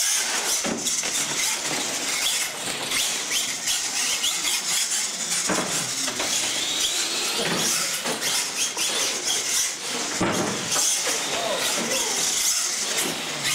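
Radio-controlled monster trucks racing: motors and drivetrains whining and tyres scrubbing on concrete, starting suddenly at the launch. Several knocks come as the trucks hit and come down off the wooden ramps.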